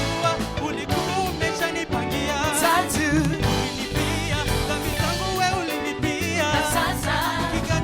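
A worship band playing, with sung vocal lines wavering in vibrato over drums and accompanying instruments.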